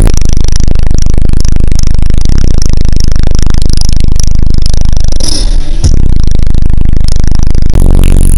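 Bass-heavy music played at extreme volume through a car stereo's two 15-inch subwoofers in a sixth-order enclosure, the deep low notes holding at full level with a short dip about five and a half seconds in.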